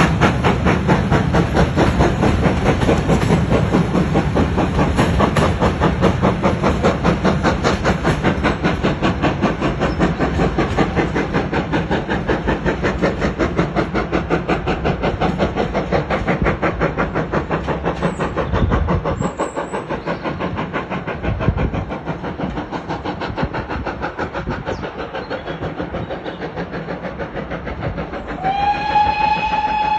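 GWR Grange-class steam locomotive 6880 'Betton Grange' working under steam, its exhaust beats coming fast and even as it accelerates up an incline, growing somewhat quieter after the middle. A steam whistle sounds near the end.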